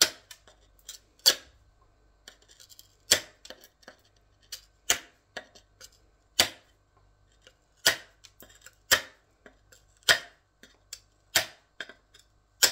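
Hand tile snips (tile nippers) biting small pieces off the edge of a ceramic wall tile, about ten sharp snaps at roughly one every second or two, trimming a thin sliver to allow for a spacer.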